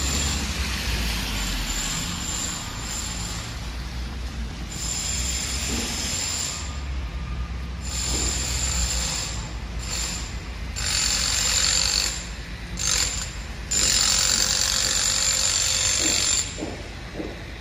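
City street traffic on wet pavement: cars passing with a low engine rumble through the first half and stretches of tyre hiss that come and go, the loudest near the end, with a thin high tone riding on the hiss.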